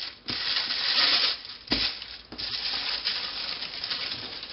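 Thin plastic bag crinkling and rustling as hands smooth it flat to press out the air and then gather its open end. The rustle is loudest in the first second and a half, with a sharp crackle a little later, then goes on more softly.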